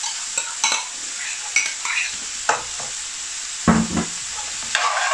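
Chopped onion sizzling and frying in hot oil in an aluminium pan, with a metal spoon clicking and scraping against the pan as it is stirred. There is a brief louder thump about three and a half seconds in.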